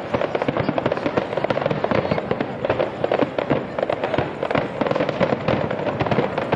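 Fireworks display: a continuous barrage of rapid, overlapping bangs and crackles with no break.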